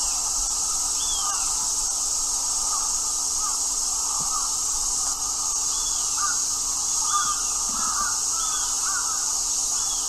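Outdoor birdsong ambience: repeated short bird calls, some of them crow-like caws, come every second or so over a steady high-pitched insect drone.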